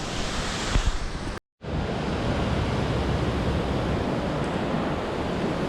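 Waterfall rushing steadily. The sound cuts out completely for an instant about a second and a half in, then carries on unchanged.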